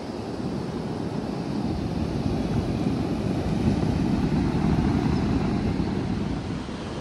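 Ocean surf breaking and washing up the beach, with wind rumbling on the microphone; the rush swells louder through the middle and eases off near the end.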